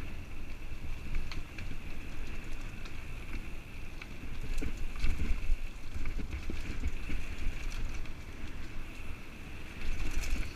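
Mountain bike ridden fast on a dirt trail: wind rumbling on a helmet-mounted camera mic, with tyre noise and scattered clicks and rattles from the bike. The rumble swells about halfway through and again near the end.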